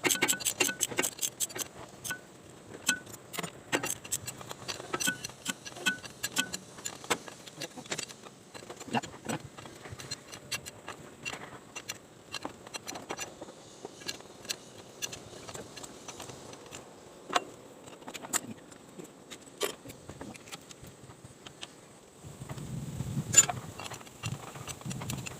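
Irregular metallic clicks and clinks of hand tools and parts being handled during injector reinstallation on an excavator engine, fastest in a quick run at the start. A low rumble comes in near the end, with one sharp, loud click.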